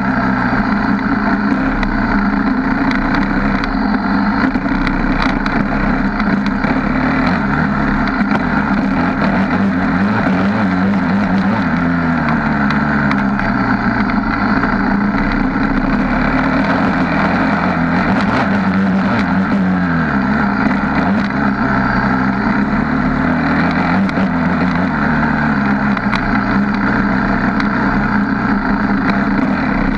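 Suzuki LTR 450 quad's single-cylinder four-stroke engine running hard, its revs rising and falling again and again with the throttle. It is heard up close from the front bumper.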